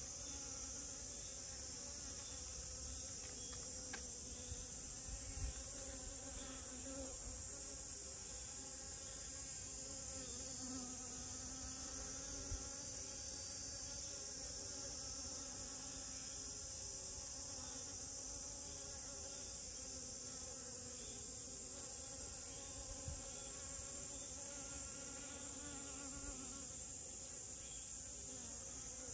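Honeybee buzzing low and wavering as it forages among rose moss flowers, over a steady high-pitched insect chorus.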